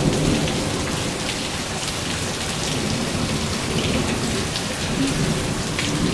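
Pounding heavy rain, a steady hiss of the downpour falling onto a water-covered concrete patio and the pool screen enclosure, with scattered drips and splashes standing out.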